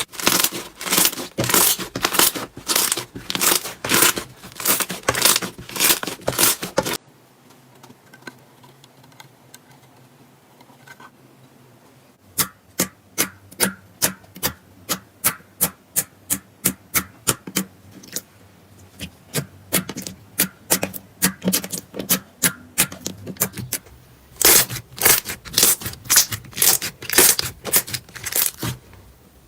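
Slime being pressed and squeezed by hand, giving a run of crackling pops, about three a second. It goes quiet for a few seconds about seven seconds in, returns as thinner, sharper pops, then turns loud and crackly again near the end.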